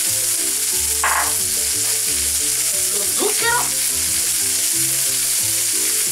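Frying pan of carrots, small onions and peas sizzling in butter and oil, with two brief rattles about a second and about three seconds in. Soft background music plays under the sizzle.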